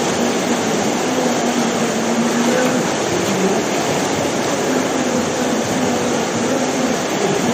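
Whitewater rapids of an artificial canoe slalom course: loud, steady rushing of churning water.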